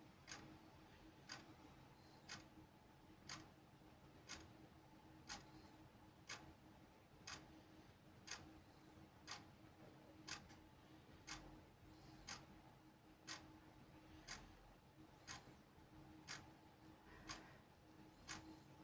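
Faint clock ticking, about one tick a second, over a low steady hum.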